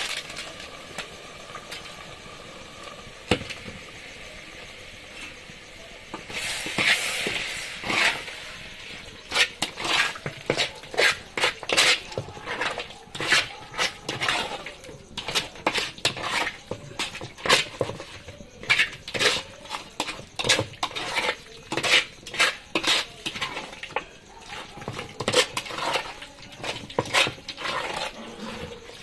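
A metal spoon clinking and scraping against a cooking pot over and over, as in stirring, with quick strokes several times a second from about a third of the way in.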